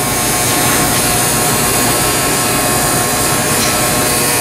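Steady loud rushing roar of commercial kitchen ventilation, such as the exhaust hood fans over the fryers, with a faint steady hum under it.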